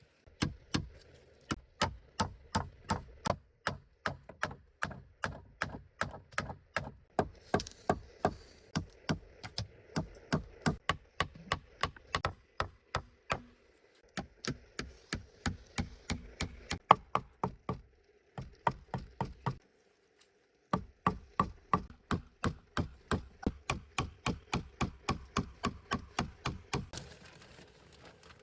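Rapid, steady chopping: a blade striking wood about two to three times a second, with two short pauses, stopping near the end.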